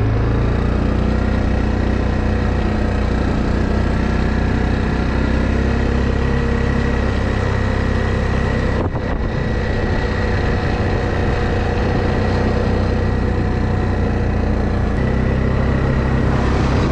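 ATV engine running steadily, with a brief dip in level about nine seconds in.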